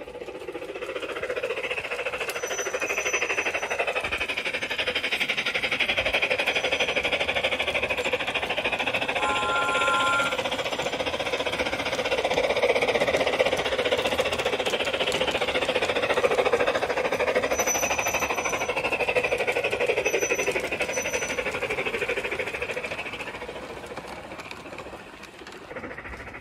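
Large-scale garden-railway model train, a red tender engine pulling coaches, running along the track: a steady mechanical clatter and whir of wheels and running gear that builds as it comes close and fades away near the end. A short steady tone sounds about ten seconds in.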